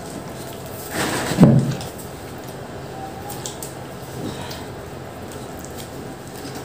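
Pizza eating: quiet chewing and the handling of slices, with one short louder bump about a second and a half in, over a faint steady hum.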